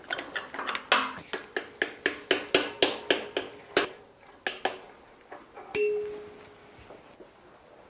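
Ratchet spanner clicking in a quick run, about four or five clicks a second, as a 23 mm socket undoes a cylinder-head nut on a Rolls-Royce Meteor V12. About six seconds in, a single metal clink rings on briefly.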